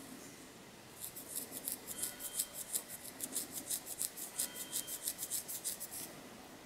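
Long fingernails scratching a flaky, dandruff-covered scalp through the hair: a fast run of short, dry scratching strokes, about five a second, starting about a second in and stopping near the end.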